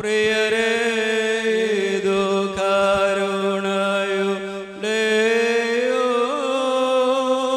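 Voices singing a liturgical chant in long, held notes with little change in pitch, in a church service. One phrase breaks off about two-thirds in and a new one begins.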